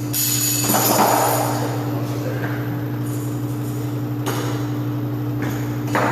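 A steady low mechanical hum, with scraping and clattering of metal hardware near the start and sharp knocks about four seconds in and near the end.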